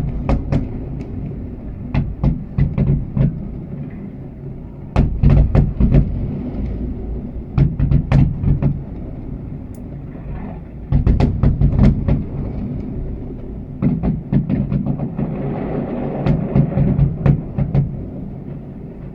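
Aerial fireworks bursting in salvos: clusters of sharp bangs over a low rolling rumble, a new salvo every two to three seconds.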